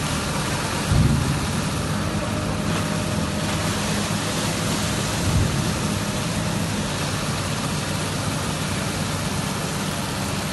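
Hydraulic excavator's diesel engine running steadily as the machine digs silt out of a concrete drain, with two low thumps, about a second in and again past five seconds.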